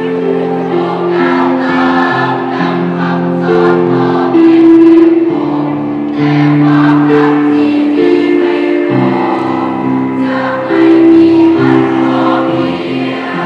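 School choir singing in several-part harmony, holding long chords that change every second or two.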